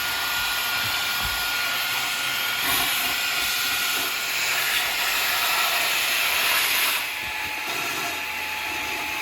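Cordless stick vacuum running: a steady whirring motor and rushing air with a faint whine, a little quieter from about seven seconds in.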